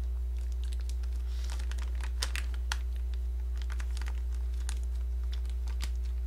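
Plastic bag crinkling in short, irregular crackles as it is twisted shut and tied with a rubber band, over a steady low electrical hum.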